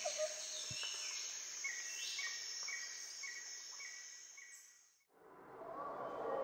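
Faint ambient background: a steady high hiss with a short, high chirp repeating about twice a second, like insects. It fades out to silence about three-quarters of the way through, and a different, lower background noise rises near the end.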